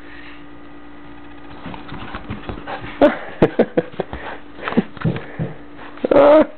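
A Shepherd Chow mix puppy scuffling and sniffing about on a couch, amid clicks and rustles, then letting out one short, loud bark near the end, with a smaller yip a few seconds earlier.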